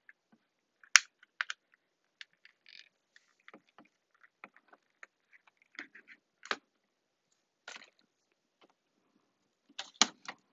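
Small items being handled and sorted by hand: irregular clicks, taps and rustles, with sharper knocks about a second in, about two-thirds through and near the end.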